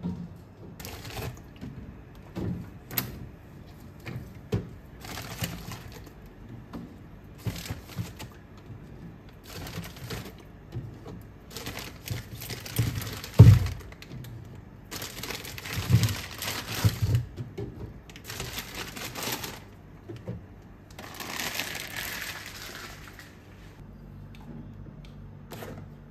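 Small plastic water bottles crinkling and knocking as they are handled and laid on a refrigerator shelf, in a string of separate rustles and clunks. A heavier thunk comes about halfway through.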